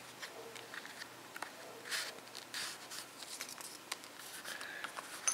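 Faint handling noise of a leather slip pouch being turned over and a small white Arkansas whetstone sliding out of it: soft rustles and scrapes with a few light taps, and a sharper click near the end.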